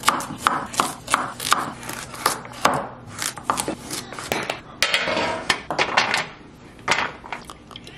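Chef's knife chopping carrots on a wooden cutting board: a quick run of sharp knocks as the blade strikes the board. About five seconds in there is a brief scraping sound, then a couple of knocks near the end.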